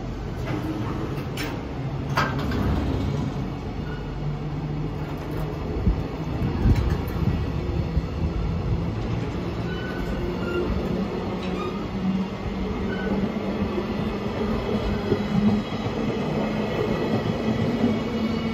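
Freight train's container flat wagons rolling past at close range as the train pulls out and picks up speed: a steady rumble of wheels on rail, sharp clanks about one and a half and two seconds in, and a few brief wheel squeals.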